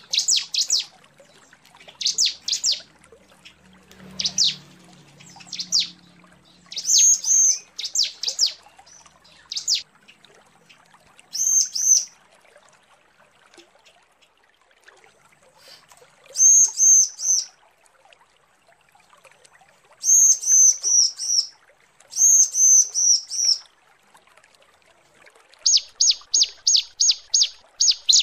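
Female bar-winged prinia (ciblek) calling to males: short bursts of quick, high, down-slurred notes, repeated in groups every second or two with brief pauses between. Near the end it breaks into a fast, even run of repeated notes, about five a second.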